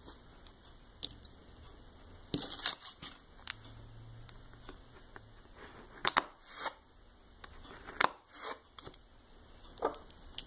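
Short scrapes and clicks from nail-stamping tools being worked by hand, in a few separate bursts.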